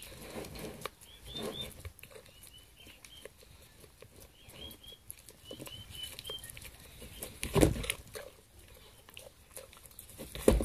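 A goat slurping and lapping a mash of water, squash and bread from a plastic bowl, with small wet clicks throughout. Birds chirp in two short runs of quick notes, and two louder knocks come about eight seconds in and near the end.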